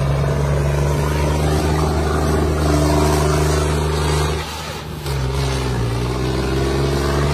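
Tractor's diesel engine running steadily during a wheel-spinning sand stunt. It drops briefly about four and a half seconds in, then picks up again at a slightly lower pitch.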